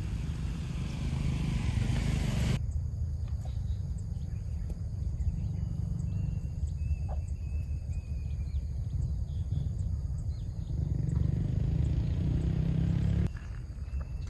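Cattle lowing over a steady low rumble, with abrupt cuts about two and a half seconds in and near the end.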